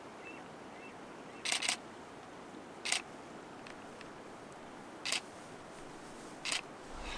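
Shutter and mirror of a Canon crop-sensor DSLR firing: a quick double click about a second and a half in, then single clicks every second and a half to two seconds, five in all, over a steady background hiss.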